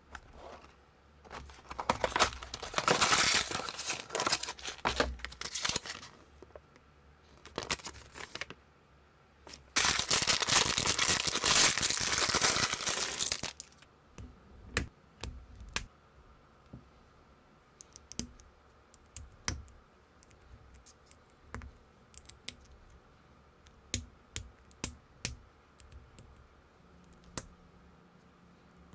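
Cardboard box and plastic packaging being torn open and crinkled in two long spells, then scattered sharp clicks of small plastic building bricks and minifigure parts being snapped together.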